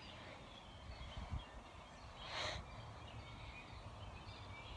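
Quiet outdoor ambience: a low steady rumble with faint scattered bird chirps, and one short breathy hiss about halfway through.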